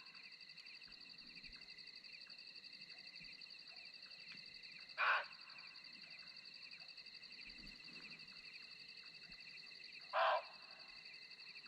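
Two short calls from an unidentified wild animal, about five seconds apart, over a steady chorus of crickets.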